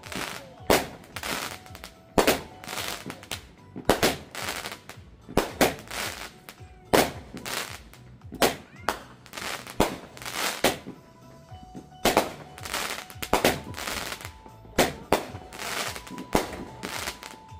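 Aerial fireworks shells bursting overhead in a rapid, irregular string of sharp bangs, some in quick clusters with crackling between them.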